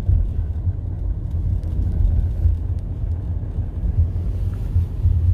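Steady low rumble of a car driving along a street, heard from inside the cabin.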